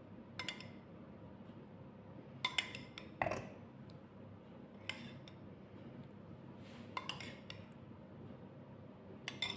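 Metal spoon clinking lightly against a ceramic bowl while scooping out tomato juices: about seven short, scattered clinks over faint room hum.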